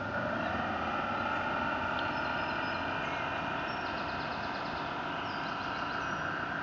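Small electric drive motor of a radio-controlled model push boat whining, its pitch rising during the first second and then holding steady, over a steady hiss.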